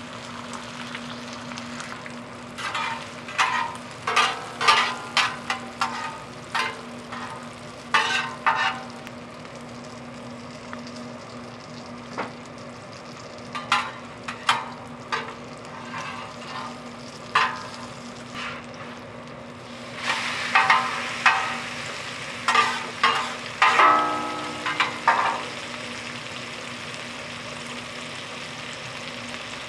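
Jeon frying on an oiled griddle, a steady sizzle with a low hum underneath. A metal utensil scrapes and taps against the pan in bursts: a run of sharp clicks early on, a few scattered ones in the middle, and a busier stretch of scraping in the second half.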